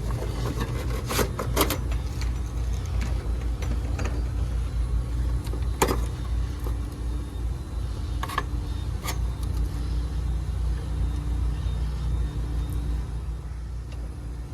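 A motor running steadily with a low hum, with a few sharp clicks and knocks of handling over it.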